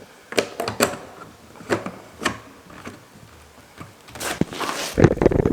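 Several sharp knocks and clatters of objects being handled, followed about four seconds in by a short rushing hiss and then a louder low rumble near the end.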